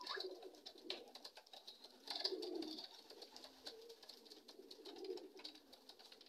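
Racing pigeons cooing faintly, loudest about two seconds in, with scattered light clicks.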